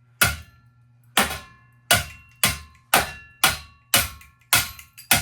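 A ceiling fan being wrecked, clanking in a series of sharp metallic strikes about two a second, each ringing briefly, over a faint steady low hum.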